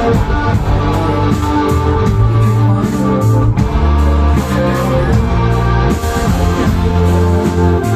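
Live post-punk band playing the song: a bass line moving under electric guitar, with drums keeping a steady beat and cymbals.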